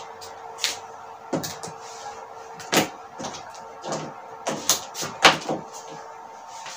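A series of about ten irregular sharp clicks and knocks, the loudest near the middle and about three quarters in, over a faint steady hum.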